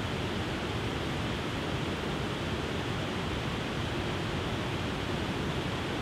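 Wide, stepped waterfall pouring over rock ledges into a pool: a steady, even rush of falling water.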